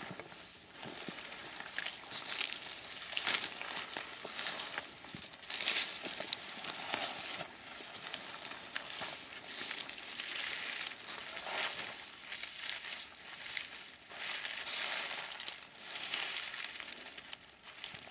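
Footsteps through dry scrub and heather, with branches and leaves brushing against clothing: an irregular crunching and rustling with no steady rhythm.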